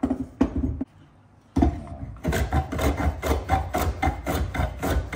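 A Record 020C compass plane shaving the convex edge of a curved board in quick, short, repeated strokes, about three a second, starting about a second and a half in. It is preceded by a couple of light knocks as the plane is handled on the wood.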